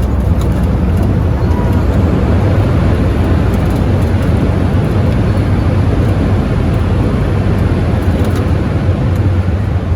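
Steady, loud rumble of a Boeing 737-800's engines and airflow heard from inside the passenger cabin, just after landing.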